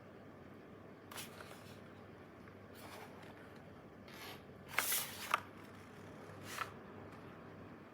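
Handling noise: a few brief scrapes and rustles, the loudest cluster about five seconds in with a couple of sharp clicks.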